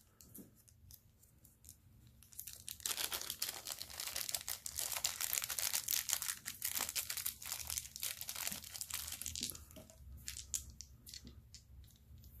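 Clear plastic bag crinkling and tearing as it is pulled open by hand, starting about two seconds in and easing off near ten seconds, followed by a few light clicks.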